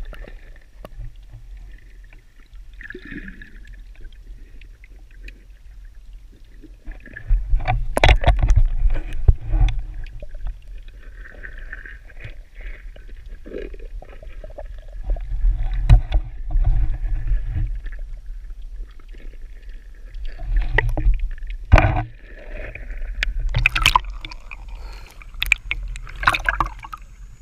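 Water sloshing and rumbling, muffled as heard through a submerged camera, with scattered knocks and swells of louder churning as a swimmer moves underwater. Near the end come sharper splashes as he surfaces.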